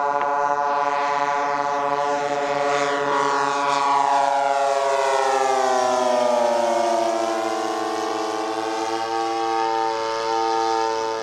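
Twin internal-combustion engines of a large-scale Hangar 9 OV-10 Bronco model plane running in flight. The note is steady at first, falls in pitch between about five and eight seconds in, then holds steady at the lower pitch.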